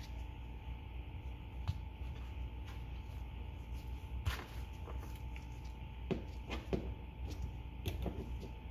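Scattered light clicks and taps of hands taking the rope and handle off an outboard motor's recoil starter, over a faint steady hum. The sharpest click comes about four seconds in, and a cluster follows a couple of seconds later.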